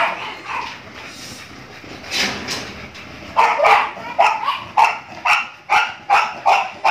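Dog barking: one bark about two seconds in, then a steady run of barks at about two a second from a little past the middle.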